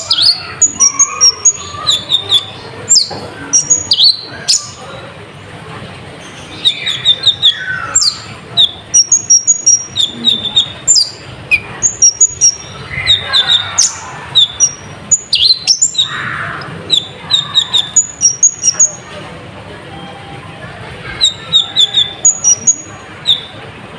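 Konin (kolibri ninja) sunbird singing: quick bursts of short, sharp, high-pitched chirps, several a second, broken by pauses of a second or two.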